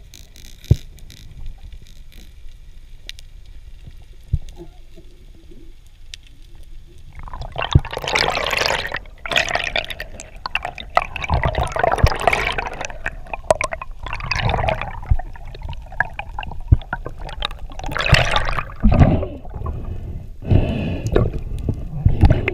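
Water rushing and sloshing against an action camera's waterproof housing as the diver moves, in loud irregular surges that begin about seven seconds in; before that, faint underwater ticks and clicks.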